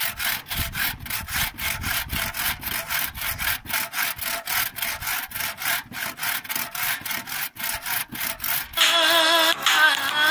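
Hand saw cutting through a wooden plank in quick, even back-and-forth strokes, about four to five a second. Near the end, music with singing starts over it.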